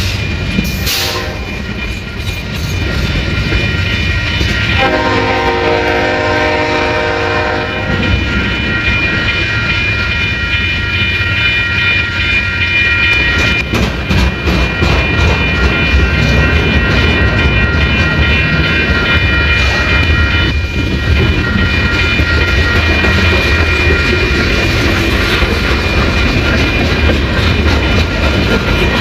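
Freight train passing close by with a steady rumble of wheels on rail and a steady high whine over it. A locomotive air horn sounds a short chord about a second in, then a longer blast of about three seconds starting around five seconds in.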